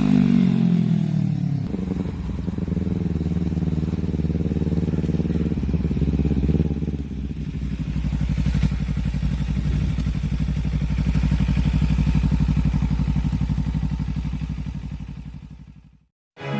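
Car engine running, its speed dropping over the first couple of seconds and then settling into a steady idle that fades out near the end.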